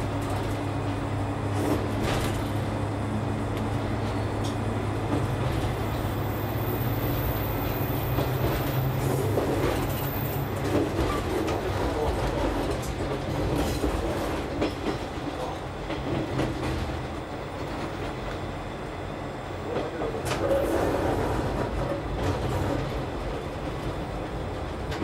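KiHa 31 diesel railcar running, heard from the cab: a steady engine drone under the rumble of the wheels, the drone fading about ten seconds in. The wheels clack over rail joints and points, most sharply about twenty seconds in.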